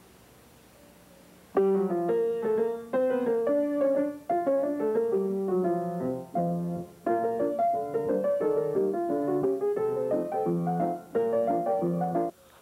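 Piano music: faint at first, then a run of quick notes comes in suddenly about a second and a half in, with a few short breaks, and stops just before the end.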